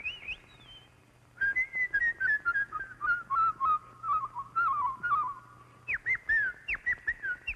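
A woman imitating jungle birds with her voice: whistled warbling chirps and trills that start after a short pause, then a run of quick swooping calls near the end.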